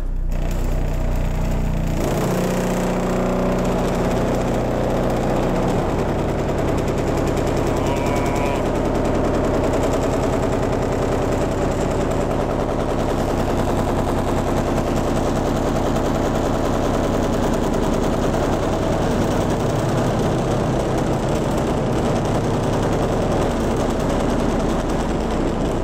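A 15-inch subwoofer in a ported welded-steel box playing loud, continuous bass. The low notes shift a couple of times in the first few seconds, and a rapid rattling buzz runs through the sound.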